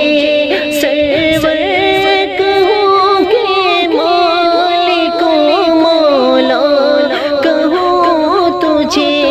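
A man singing a naat unaccompanied, drawing out long held notes that waver and bend in ornamented runs.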